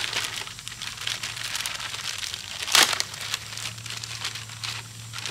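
Clear plastic packaging bag crinkling as a paddleboard pump is handled inside it, an irregular run of crackles with one sharper, louder crackle a little past halfway.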